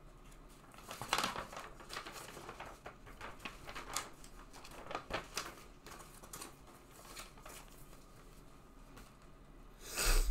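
Handling noise of a printed card-game playmat being picked up and moved off a table: rustling and crinkling with scattered light taps over the first few seconds, then quieter. A louder, brief rustle comes near the end.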